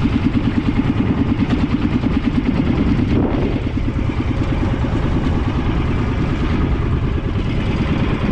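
Small fishing boat's engine running steadily with a fast, even chugging, and a brief rushing sound about three seconds in.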